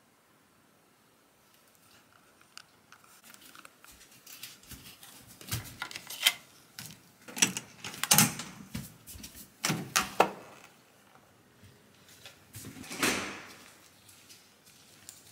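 Hotel room door opened by its lever handle: a string of latch clicks and knocks, the loudest two about halfway through, followed by a longer brushing swish near the end.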